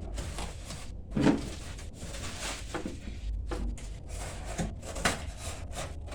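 Cardboard packaging of a fridge box being cut and handled: an irregular run of scrapes, rustles and light knocks.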